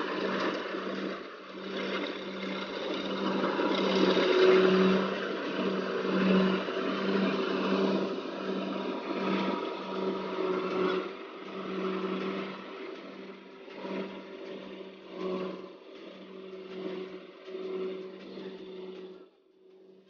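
Kubota rice combine harvester running as it cuts and threshes the crop: a steady engine drone with an even pulsing and a broad mechanical clatter over it. It grows fainter as the machine moves off down the field, dropping away sharply just before the end.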